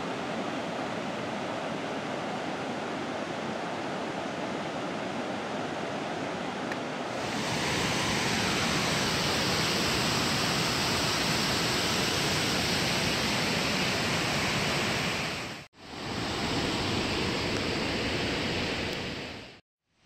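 Waterfall rushing over rock ledges: a steady, hissing rush that turns louder and brighter about seven seconds in, broken by two brief dropouts, the second just before the end.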